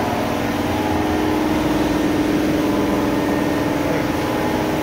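A steady mechanical hum at a constant pitch, like a motor or machine running.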